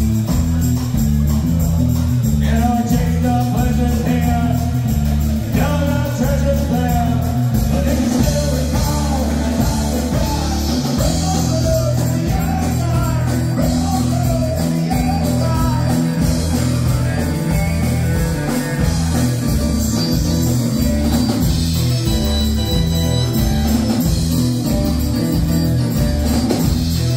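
Live rock band playing loud through the club's speakers: a repeating bass line and guitar under a singer's voice.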